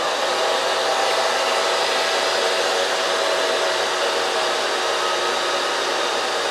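Blower fan of a 12-volt PTC car heater running fast, fed directly from solar panels: a steady rush of air with a faint steady whine.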